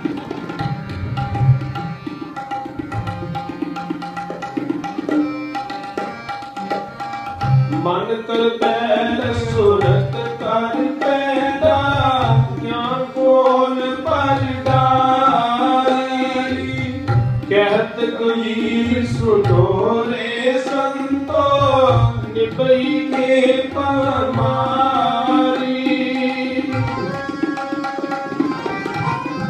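Sikh kirtan music: tabla playing a steady rhythm under sustained harmonium tones. From about eight seconds in until near the end, a voice sings a gliding, ornamented melodic line over them.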